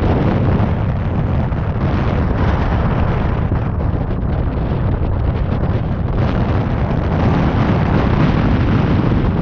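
Strong wind buffeting the camera's microphone: a loud, steady, rumbling roar that runs without a break.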